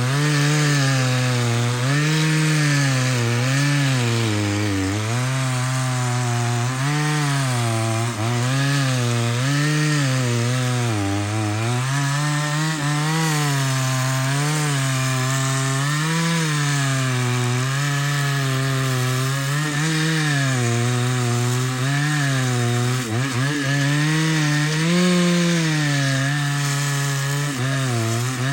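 Chainsaw cutting through hardwood under load, its engine pitch rising and falling about once a second as the chain bites into the wood and frees up.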